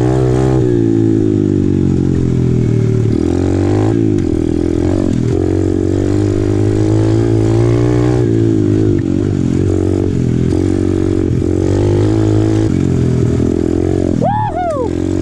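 Apollo RFZ 125cc pit bike's single-cylinder four-stroke engine under way, its note climbing and dropping several times as the throttle is worked.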